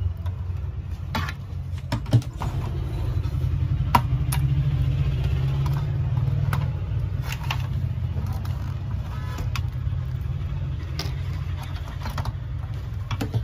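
Scattered clicks and knocks of plastic parts and connectors being handled inside an opened induction cooker, over a steady low rumble.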